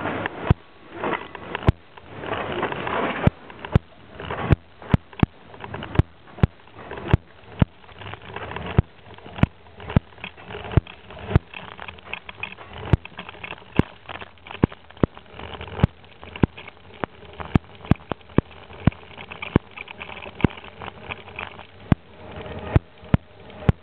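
A bicycle in motion, picked up by a camera mounted on it: steady rolling and wind noise, crossed by sharp knocks about every two-thirds of a second. The noise is louder over the first few seconds.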